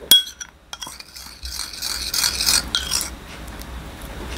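Dishes and utensils being handled on a kitchen counter. There is a sharp ringing clink just after the start, then a second or two of scraping and rustling, and another clink near the end.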